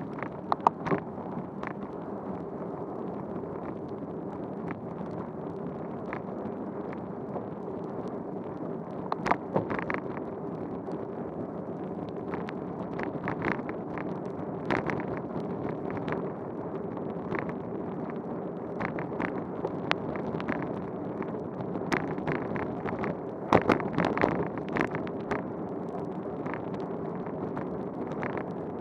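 Bicycle rolling on a wet road in the rain, heard through a bike-mounted camera: a steady hiss of tyres and wind on the microphone over a faint low hum. Sharp clicks and knocks come now and then, with louder clusters about a third of the way in and again toward the end.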